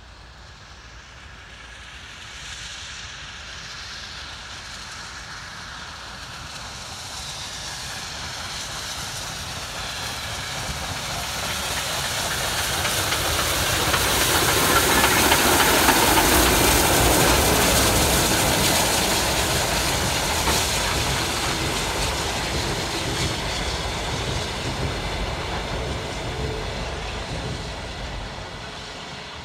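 Soviet L-class 2-10-0 steam locomotive L-2057 hauling a passenger train past: steam hiss and rolling wheels grow louder as it approaches, peak about halfway through as the engine goes by, then fade as the coaches roll away.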